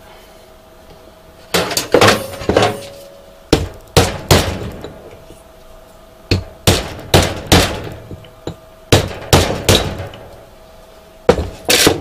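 Hammer blows on a screwdriver held as a punch against the cut secondary winding of a microwave oven transformer, trying to drive it out of the resin-bonded laminated steel core. Sharp metallic strikes come in quick groups of three or four, about eighteen in all, starting a second and a half in; the winding is stuck fast and takes a lot of hitting.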